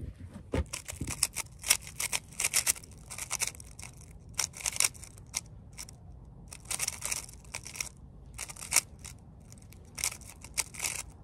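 3x3 puzzle cube being speed-solved: its plastic layers click and clack in rapid bursts of turns, with short pauses between the bursts.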